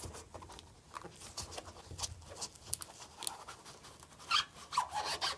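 Gloved hands working the wire spring locking ring off a front-load washer's rubber door seal: irregular rubbing and scraping with light clicks, a little louder near the end.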